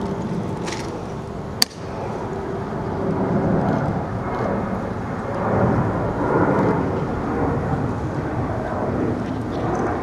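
Airplane passing overhead: a steady rumbling noise that swells around the middle, with one sharp click about a second and a half in.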